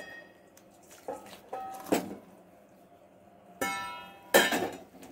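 Stainless-steel pot and perforated steel colander knocking together while boiled noodles are drained: a few ringing metallic clinks, a longer ringing clang about three and a half seconds in, and a louder clatter just after it.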